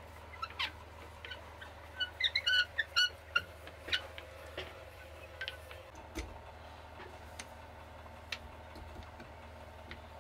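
Hand brace drilling pilot holes into a cherry blank through a lathe faceplate: scattered light clicks, and a cluster of short high squeaks about two to three seconds in.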